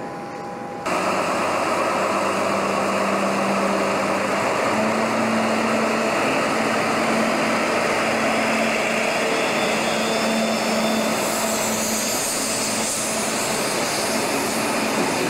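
Ludmilla-type (DR class 132/DB 232 family) diesel locomotive working under power as it pulls away with its train, a loud steady engine note that steps up in pitch about five seconds in. The sound comes in abruptly about a second in.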